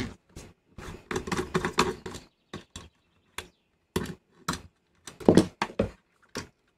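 Screwdriver and small metal parts of a VCR head drum motor clicking and tapping as it is unscrewed and handled: a quick cluster of clicks about a second in, then scattered single clicks.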